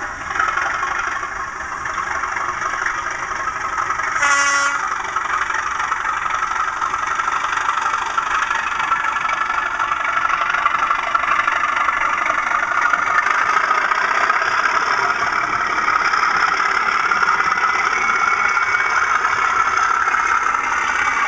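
South West Digital DCC sound chip in an OO gauge Bachmann class 37 model playing the class 37's English Electric diesel engine sound through the model's small speaker as the loco runs, getting gradually louder. A short horn blast sounds about four seconds in.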